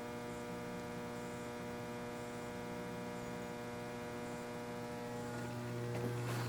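Lockformer Quadformer rollformer's 3 hp single-phase electric motor running with no metal feeding through, a steady electric hum that grows a little louder near the end.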